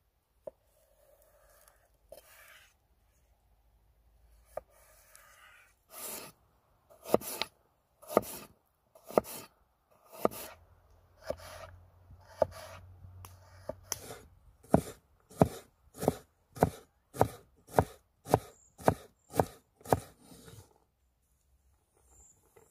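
Chef's knife cutting fresh ginger on a wooden cutting board: soft cutting and scraping at first, then separate knife strokes striking the board, building into a steady run of chops about two a second that stops near the end.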